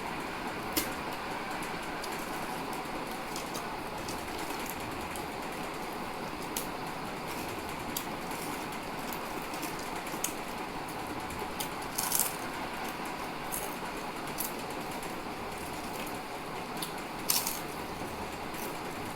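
Lay's potato chips crunching as they are eaten, in scattered short crackles, the loudest about twelve and seventeen seconds in, over a steady background hiss.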